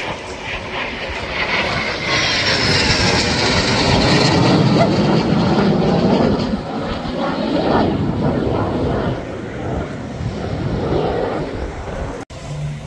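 Display aircraft flying past: engine roar swells to a peak a few seconds in and falls in pitch as it goes by, then fades.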